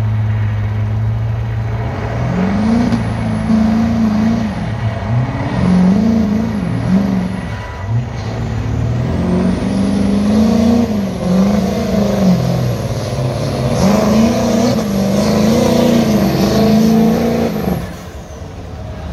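Turbo diesel pickup truck engine at full throttle pulling a weight-transfer sled. It holds a steady note at first, then about two seconds in goes to full power, its pitch rising and falling over and over, with a high turbo whistle tracking the revs. Near the end it comes off the throttle and the engine note falls away.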